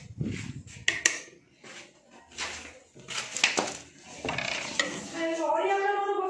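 Irregular clinks and clatter of metal dishes and utensils being washed.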